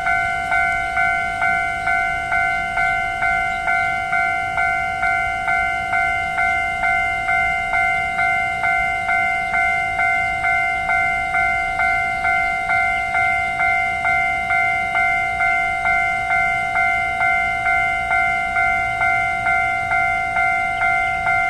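Railway level crossing warning bell ringing steadily, about two rings a second, warning of an approaching train.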